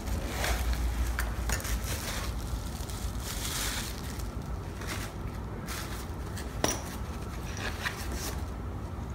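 Crinkling and rustling of a plastic bubble-wrap sleeve as a handheld microphone is unwrapped, with scattered handling clicks and one sharper click about two-thirds of the way through.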